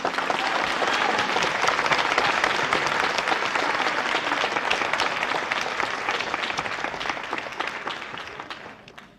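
Studio audience applauding: many hands clapping, starting suddenly and dying away near the end.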